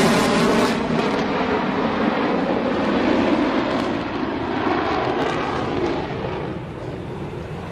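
F-22 Raptor jet fighter's twin Pratt & Whitney F119 turbofans roaring in a flyby. The hiss drops away about a second in, leaving a lower rumble that fades as the jet pulls away.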